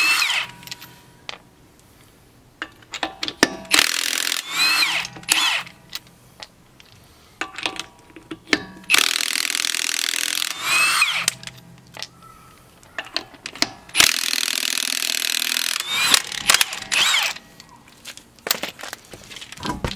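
Milwaukee M18 Fuel cordless impact wrench taking off wheel lug nuts, in several bursts of one to two seconds, its motor whine rising and falling with each. Short clicks and knocks sound between the bursts.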